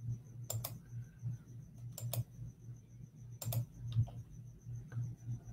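A few sharp clicks at a computer, mostly in close pairs about a second and a half apart, over a low steady hum.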